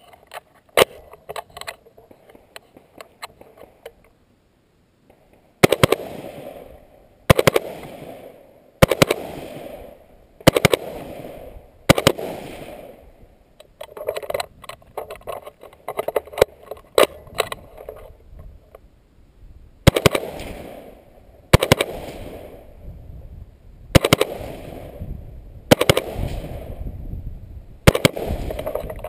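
AR-15 rifle fired in slow, deliberate single shots about every one and a half to two seconds, each sharp report trailing off in an echo, with a run of quieter pops in between.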